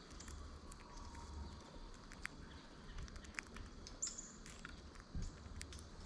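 Faint, scattered ticks of a common grackle's bill picking at seed on a platform feeder, with one brief high chirp from a bird about four seconds in.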